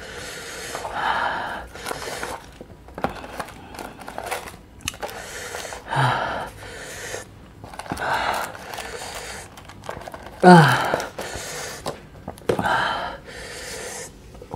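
Heavy mouth breathing from a man whose mouth is burning from the Paqui One Chip Challenge chip: sharp hissing breaths every couple of seconds, with a loud falling groan about ten seconds in. Cardboard chip boxes click and scrape against a wooden board between the breaths.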